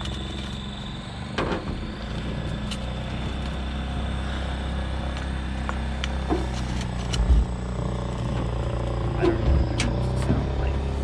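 A jet boat's engine idling steadily, with a few sharp clicks and two short low thumps over it.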